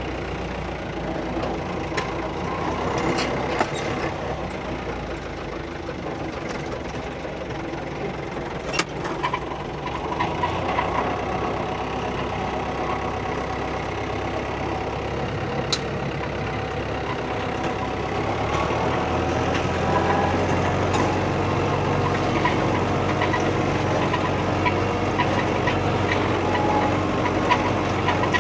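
Old New Holland tractor engine running steadily, with a few sharp knocks; about two-thirds through it gets louder.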